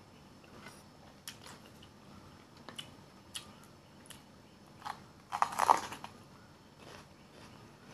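A bite into a whole raw yellow bell pepper: one loud, crisp crunch about five seconds in, after a few small chewing clicks.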